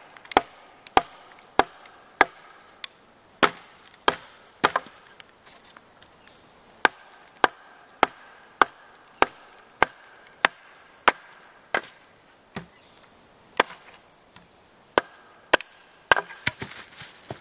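Ontario kukri blade striking a stick of wood in regular sharp chops, about one every 0.6 seconds, with a pause of about two seconds around five seconds in.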